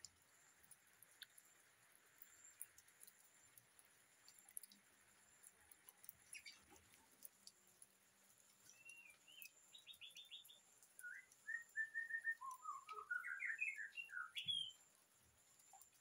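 White-rumped shama (murai batu) singing a burst of quick, varied chirps and whistled notes that climb in pitch, lasting about six seconds and cutting off suddenly. Before the song there are only faint ticks.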